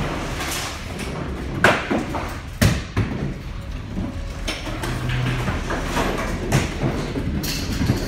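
Sharp knocks and bangs inside a ship's bridge as the vessel rolls heavily in rough seas, several of them at uneven intervals over a steady low rumble of the ship.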